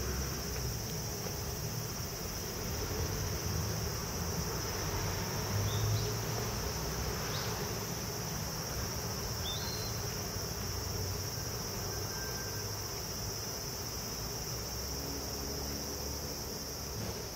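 Insects singing in a steady, unbroken high-pitched chorus, over a low background rumble.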